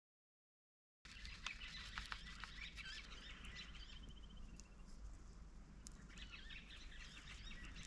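Quiet outdoor ambience with a bird's rapid trill about three seconds in, a few faint chirps and ticks later on. The first second is dead silent.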